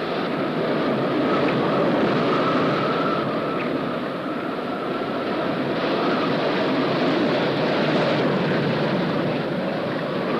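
Storm wind and heavy seas on a ship's deck: a steady rushing noise, with a faint wavering whistle that comes and goes.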